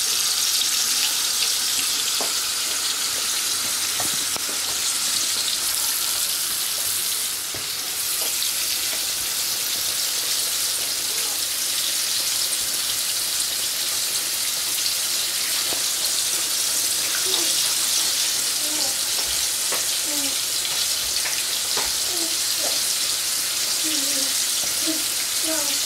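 Flour-coated chicken pieces shallow-frying in hot oil in a frying pan: a steady, dense sizzle with scattered sharp pops.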